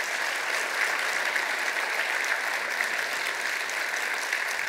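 Audience applauding steadily at the end of a talk, many hands clapping.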